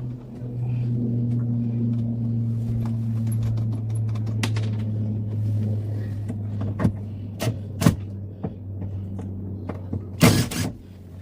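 A steady low mechanical hum that fades after about seven seconds, with a few sharp knocks and a loud clatter near the end.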